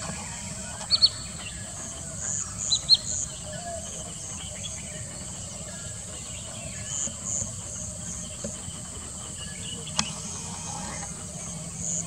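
Outdoor ambience of a steady, high-pitched insect chorus with a pulsing beat, with short bird chirps in pairs about a second in and again near three seconds, and a single sharp click near the end.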